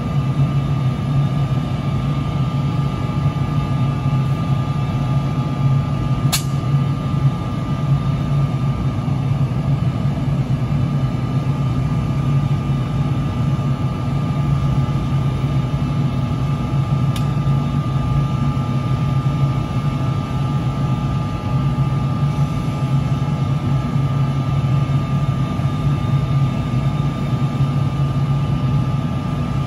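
NJ Transit ALP-46 electric locomotive humming steadily close by: a low, even drone with a thin steady whine above it. Twice there is a brief sharp click.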